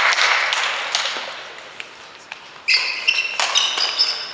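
Clapping in a sports hall dying away over the first couple of seconds, with a few light taps. From nearly three seconds in, badminton shoes squeak sharply on the court floor, mixed with crisp racket strikes.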